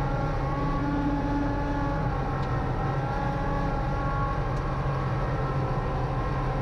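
Kubota LX2610 compact tractor's three-cylinder diesel engine running steadily under load, heard from inside the cab, as the tractor reverses pushing snow with its rear blade.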